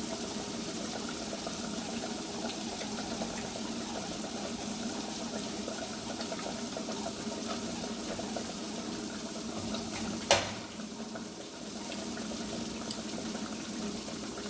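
Hot oil sizzling steadily in a frying pan, with many small crackles through it. About ten seconds in there is one sharp click or clatter.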